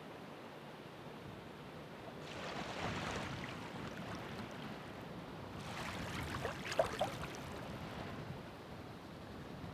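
Ocean waves breaking twice, the first about two seconds in and a stronger one near six seconds, each a rush of surf followed by a fizzing, crackling wash.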